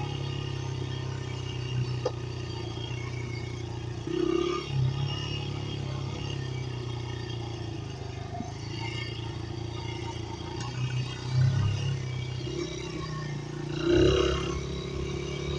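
Dirt bike engine running while being ridden over grass, steady, with a few brief louder surges.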